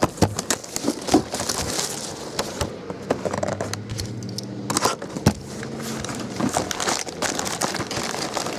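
Plastic shrink wrap and a cardboard trading-card box being handled and opened: irregular crinkling and crackling with many sharp clicks, ending with foil card packs rustling as they are lifted out of the box.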